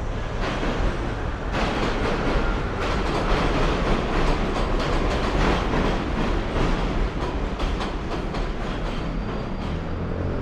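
A #6 subway train running on the elevated Pelham Line along Westchester Avenue: a loud rumble with quick clickety-clack of the wheels over rail joints. It swells about a second and a half in and eases off in the last few seconds.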